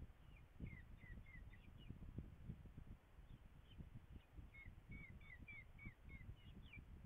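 Falcon chicks giving faint begging calls while being fed in the nest box: two runs of short, down-slurred chirps, about three a second, over a low rumble.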